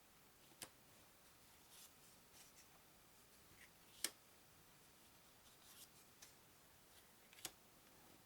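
Faint handling of game cards: a few light clicks and soft rustles as cards are picked up and put down, the sharpest click about four seconds in.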